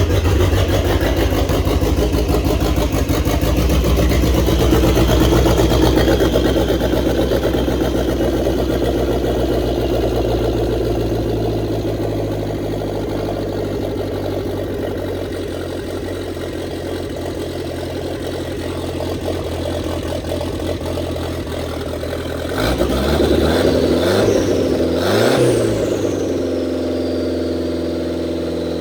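A 2.3-litre turbocharged four-cylinder engine running just after a start, with a fast idle that settles lower over the first several seconds. Near the end it is revved up briefly a couple of times, then drops back to idle.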